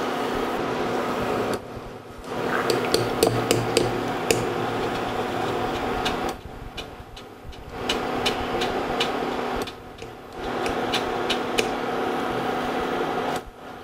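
Wire spider strainer tapping against the rim of a frying pan to shake off oil from the fried cheeselings, in two runs of quick metallic taps. Under it runs the steady electric hum of an induction cooktop.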